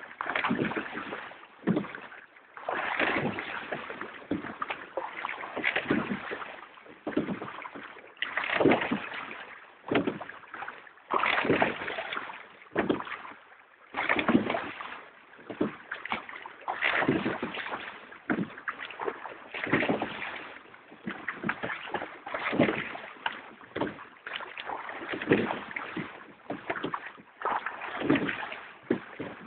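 Crewed rowing boat under way: oars catching and pulling through the water in a steady rhythm, a swish and splash with knocks from the oars in their gates about every three seconds.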